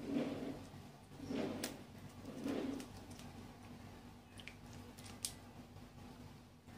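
A dove cooing three times, about a second apart, in the first three seconds. A few sharp snips of kitchen scissors cutting into a grouper's belly come in between and after.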